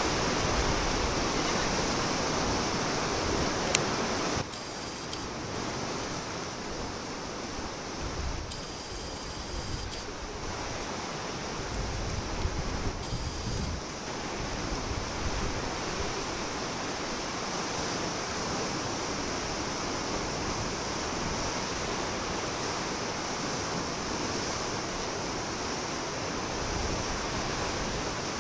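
Steady rush of wind and surf over a choppy sea, with low gusts of wind on the microphone, a brief click a little under four seconds in, and a slightly lower level after it.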